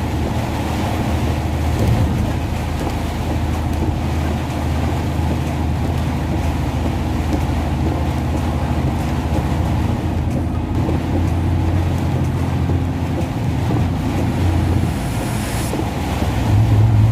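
Car interior in a heavy rainstorm: steady rush of wind and rain over the low drone of the engine and road noise. Near the end the low drone steps up in pitch.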